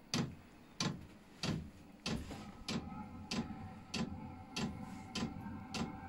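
Vevor all-in-one diesel heater's fuel dosing pump ticking steadily, about three ticks every two seconds, as the heater starts up after the glow plug has lit it. A steady hum from the heater's fan comes in about two seconds in as it ramps up.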